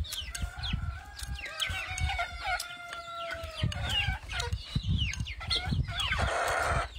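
A rooster crowing: one long call that sags in pitch at its end, over close-up chewing and chopstick clicks against a bowl. Near the end there is a harsh, noisy burst about a second long.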